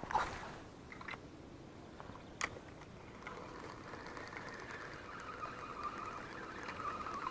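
Spinning reel being cranked: a steady, fluttering whir that starts about three seconds in, after a short swish near the start and a single click.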